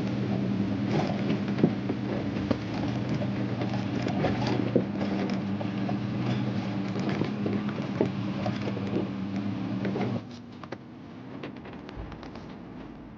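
An off-road 4x4's engine running at low speed with frequent clicks, knocks and creaks, as of a vehicle crawling over rocks on a trail. The engine sound cuts off suddenly about ten seconds in, leaving fainter clicks.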